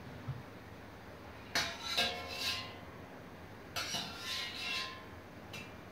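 A metal skimmer clinks and scrapes against a stainless steel pot as boiled beetroots are scooped out. This comes in two bouts, each with a short metallic ring.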